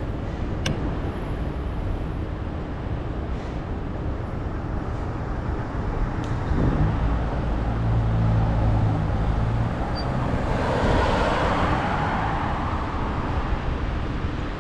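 City street traffic: a steady rumble of passing cars, with one vehicle swelling louder and fading away about ten to thirteen seconds in.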